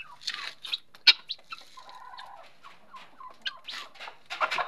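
Helmeted guinea fowl calling: a run of short, harsh, raspy calls one after another, loudest about a second in and again near the end.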